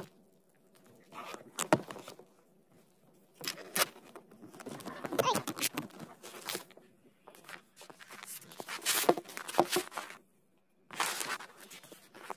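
A ferret scrabbling at and rubbing against the phone: irregular bursts of scratching, rustling and tapping close to the microphone, with short quiet gaps between.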